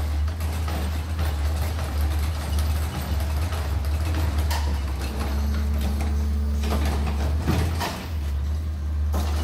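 Autocar ACX garbage truck with a Rapid Rail side-loader arm, its diesel engine running with a steady low drone while it idles at the curbs; a steady hum joins for about two seconds halfway through, and a few light knocks come near the end.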